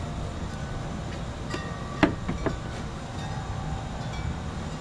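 A few light metallic clinks and taps, the loudest about two seconds in, some ringing briefly, from small metal parts and hand tools being handled. Under them a steady low hum.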